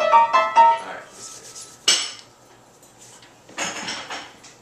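Upright piano played high on the keyboard: a short run of bright notes in the first second, then two sharp high strikes about two seconds apart, each ringing away, with near-quiet gaps between them.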